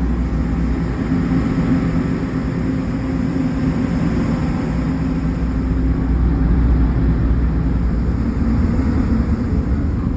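A large engine running steadily: a low drone with a steady hum over it.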